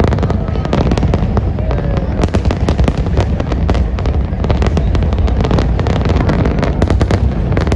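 Fireworks display: a dense, rapid stream of crackling pops from crackle stars over an unbroken low rumble of bursting shells.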